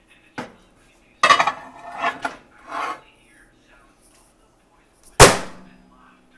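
A plate clattering and scraping as it is set onto a microwave's glass turntable, then the microwave door slammed shut with a loud latch bang about five seconds in. A faint low hum follows the slam.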